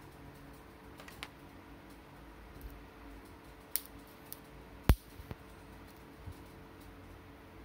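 Small plastic clicks and taps of a plug, a power meter and cables being handled, with one sharp click about five seconds in, over a faint steady hum.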